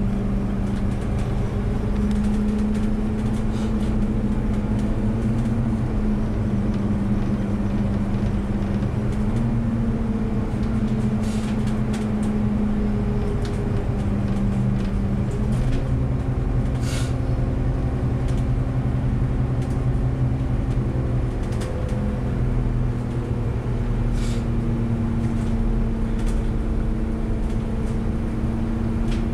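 Bus cruising on a winding road, heard from on board: a steady drone with road noise, its pitch stepping up and down several times, and a few brief rattles.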